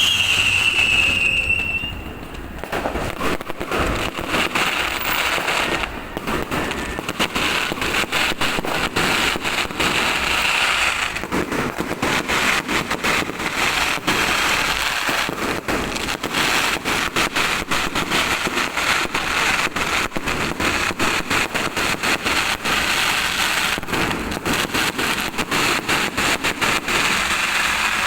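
New Year fireworks going off in a dense, continuous run of bangs and crackles, with a falling whistle in the first second or so.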